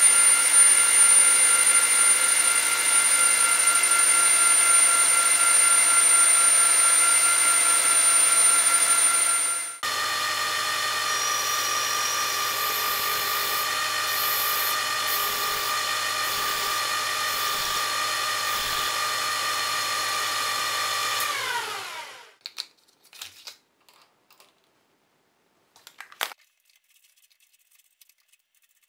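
Metal lathe running while turning a copper bar: a steady machine whine with several fixed tones. About ten seconds in it changes abruptly to a similar run with a slightly lower main tone. Just over twenty seconds in it winds down with falling pitch and stops, leaving only a few faint clicks.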